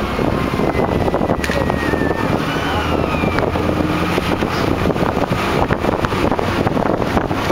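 A moving road vehicle running steadily, its engine rumble mixed with road and wind noise, heard from on board.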